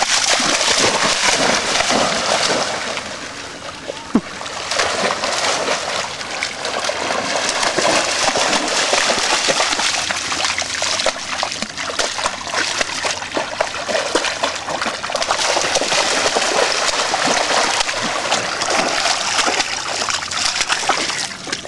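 Dogs wading and splashing in shallow lake water, their legs churning the water almost continuously, with a brief lull about three to four seconds in.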